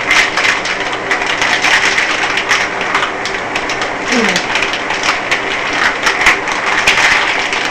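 Plastic packaging of tilapia crinkling and rustling in a steady stream of crackles as hands struggle to tear it open.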